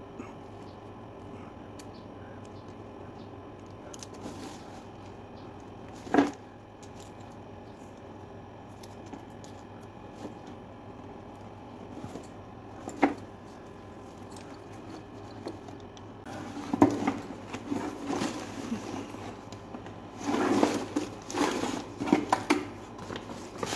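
Paper and masking material being handled while a leather backpack is masked off for painting, over a faint steady hum. There are two sharp knocks several seconds apart, then from about two-thirds of the way in a run of rustling and crinkling.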